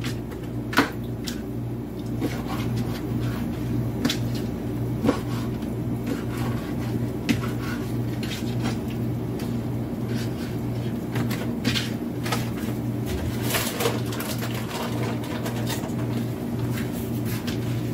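Knife cutting raw chicken thighs into cubes on a cutting board: irregular light taps of the blade against the board, over a steady low hum.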